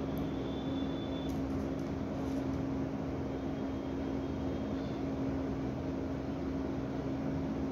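Steady machine hum with one constant low tone, like a motor or appliance running, holding an even level throughout. A few faint ticks about a second and a half in.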